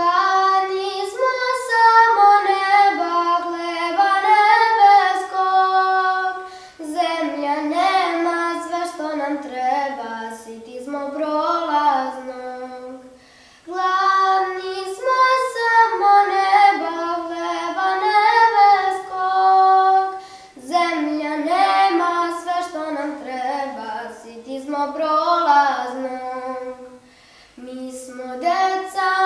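A young girl singing solo with no accompaniment, a slow melody in long phrases with short pauses for breath between them.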